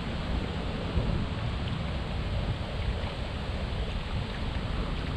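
Wind buffeting the microphone: a steady, gusting low rumble of noise.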